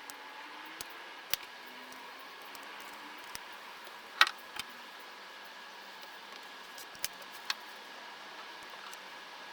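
Small metal parts and hand tools being handled while an impact driver is taken apart: scattered light clicks and ticks, with one loud ringing metallic clink about four seconds in.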